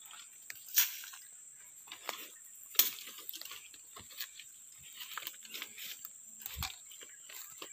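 Footsteps crunching and crackling through dry twigs and leaf litter, with two sharp snaps about one and three seconds in. A steady high-pitched insect drone runs underneath.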